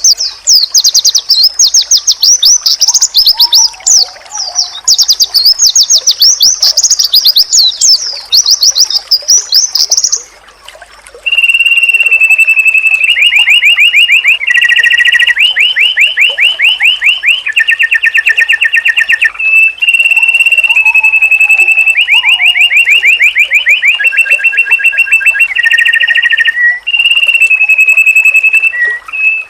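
White-eye (pleci) song recording. It starts with a rapid, high warbling song for about ten seconds, then after a brief pause switches to a lower song of long level whistles broken by fast trills.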